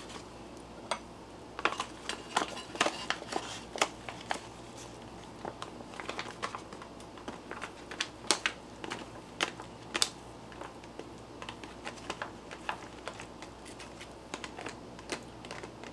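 A fork scraping and tapping rice out of a foil pouch onto a plate, with the pouch crinkling: a string of irregular sharp clicks and rustles.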